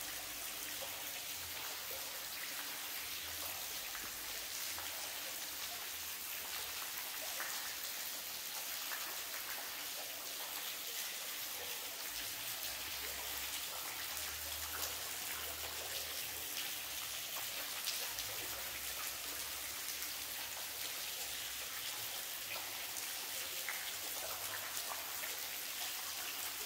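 Water of the high waterfall at the grotto falling and spattering in drops like rain, a steady hiss with fine pattering.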